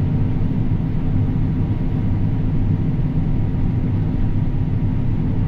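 Large farm diesel engine running steadily under load, a constant low drone with no change in pitch.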